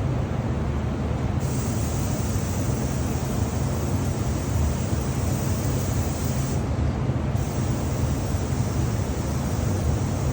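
Spray equipment applying sanding sealer or lacquer: a steady low motor drone with a high air hiss from the spray gun that comes on a little over a second in, drops out briefly about two-thirds of the way through, and comes back.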